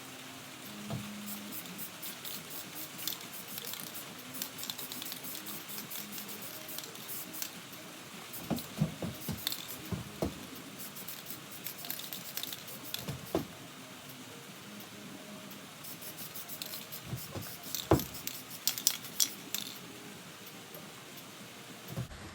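Aerosol spray paint can spraying an undercoat: a steady hiss with scattered clicks and a few light knocks.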